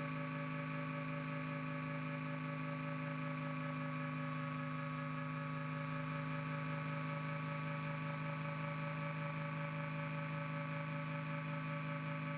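Hummingbird helicopter's piston engine and rotor drive heard from inside the cockpit: a steady, even drone with several held tones that does not change.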